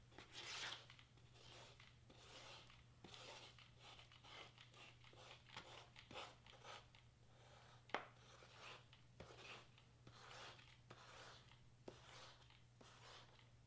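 Faint rustling and scraping of cardstock being lifted and pressed down onto foam board while hot-gluing, with scattered small clicks, one sharper than the rest about eight seconds in. A faint steady low hum runs underneath.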